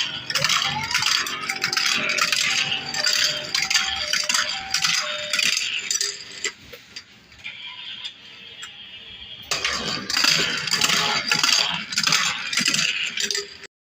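Toys rattling and clattering, with a short tune of stepped electronic notes in the first few seconds; the clatter quietens for a few seconds in the middle, then picks up again.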